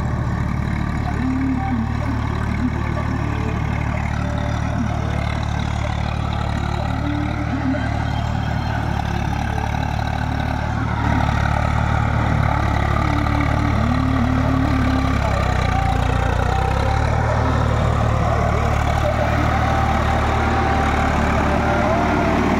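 Swaraj 843 XM tractor's three-cylinder diesel engine running steadily under load as it pulls a rotavator through a flooded paddy field. The engine grows louder about halfway through as the tractor comes close.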